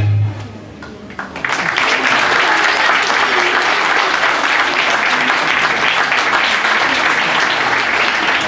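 Music ends on a held low note about half a second in; a second later a large audience starts applauding and keeps on clapping steadily.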